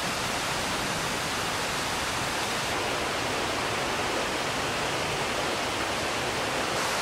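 A river flowing: a steady, even rush of water that does not change.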